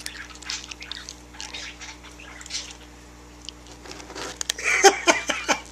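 A cat crunching dry kibble from a bowl: irregular crunches that grow louder and busier about four seconds in.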